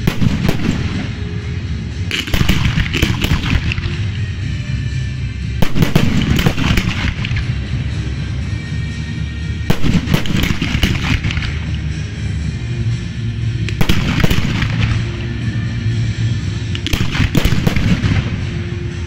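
Fireworks shells bursting in the sky in quick clusters of bangs, a new cluster every three to four seconds, with music playing underneath.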